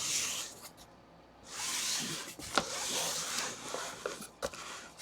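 A cardboard box being handled: rubbing and sliding against a surface, with a couple of sharp knocks.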